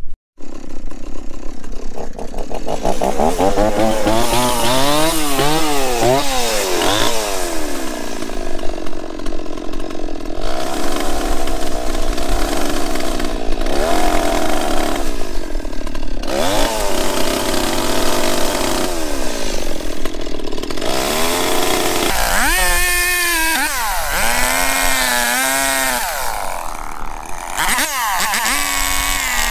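Chainsaw cutting notches into a wooden fence post for a brace's top rail, its engine revving up and down repeatedly.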